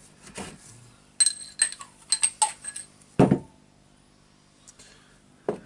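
Small steel parts of a demolition hammer clinking against one another and the bench as they are handled: several sharp, ringing metal clinks over about a second and a half, then a duller, louder thud about three seconds in.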